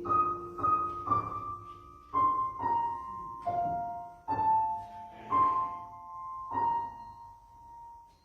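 Piano playing a slow melody, one struck note after another, each ringing and fading over softer low notes; the phrase dies away near the end.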